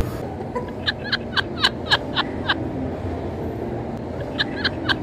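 Chirping: two quick runs of short chirps, each falling in pitch, about four a second, over a steady background hum.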